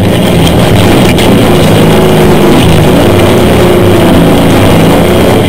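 Sand rail's engine running steadily under load as the buggy drives across the dunes.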